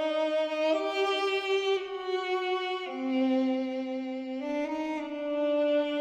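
Outro music: a slow bowed-string melody, violin-like, holding long notes that change pitch about every one to two seconds.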